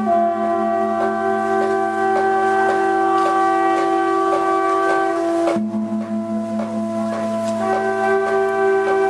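Background music: sustained droning chords with bell-like tones, the chord shifting about five and a half seconds in and again near the end.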